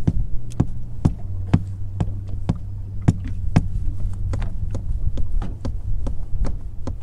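Steady tapping knocks on the boat's floor, about two a second, made to draw a school of white bass under the boat, over a steady low hum.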